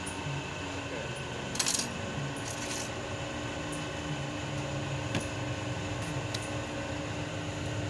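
A metal blade scraping and tapping on an ECU's circuit board and pin connector, with sharp metallic clicks and clinks, the loudest cluster about one and a half seconds in and single clicks later on. A steady low hum runs underneath.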